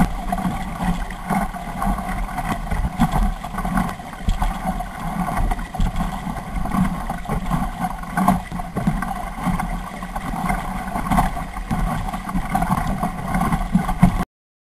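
Kayak being paddled, heard through a camera mounted on its bow: a steady, muffled rush of water and wind noise with irregular swells, which cuts off suddenly near the end.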